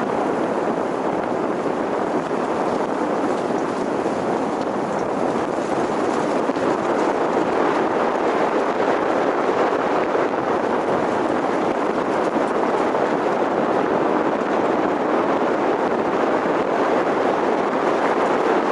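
A car driving at steady speed: an even rushing of tyre and road noise mixed with wind, getting slightly louder a few seconds in.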